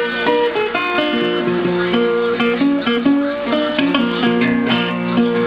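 Acoustic guitar being played: a tune of picked notes and chords that ring on, one after another.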